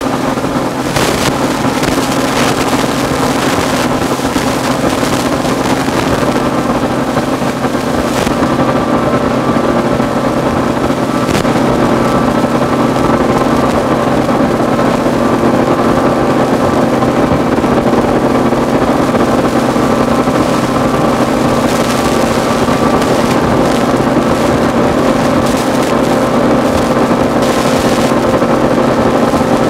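Motorboat engine running steadily with a constant drone, under a rushing noise of wind and water that swells in short bursts.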